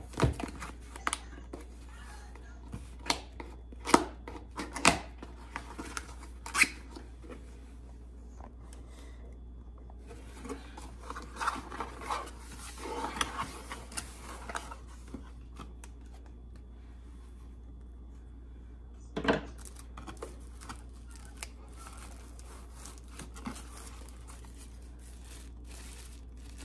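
A cardboard box being opened and unpacked by hand: scattered sharp cardboard clicks and scrapes at first, a few seconds of rustling paper and plastic packaging around the middle, and one louder knock about three-quarters of the way through.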